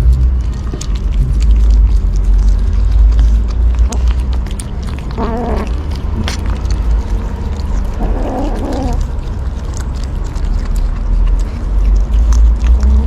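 Kittens eating fish with many small chewing clicks, and a kitten calling out twice, about five and eight seconds in, over a steady low rumble.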